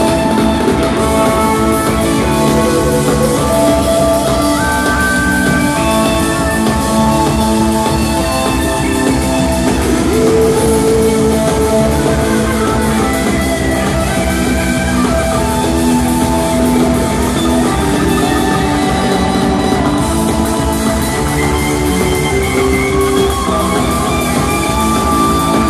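Live rock band playing a loud instrumental jam: electric guitar and keyboards holding sustained notes over a drum kit keeping a steady beat.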